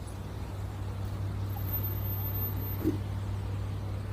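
Steady low hum of an idling vehicle engine over street noise, with one brief sharp sound near three seconds in.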